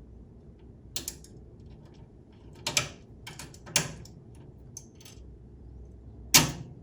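Sharp clicks and clinks of small bolt, washer and nylon spacer hardware being worked by hand into a hood prop arm's mount: about six scattered clicks, the loudest near the end.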